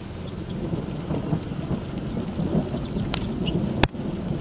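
Low rolling rumble of thunder from a nearby thunderstorm, swelling through the middle. Two sharp clicks come about three and four seconds in, the second the loudest.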